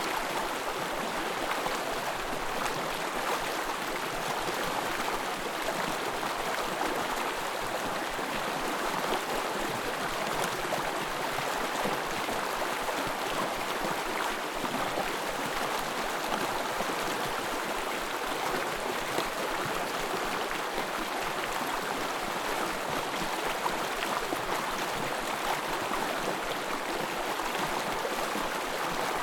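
Small forest stream running steadily over its bed, with a constant babble of water.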